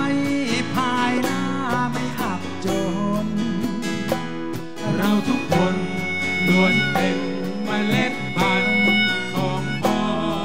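Live band playing an instrumental passage: acoustic guitar over bass and drums, with a lead melody line that bends in pitch.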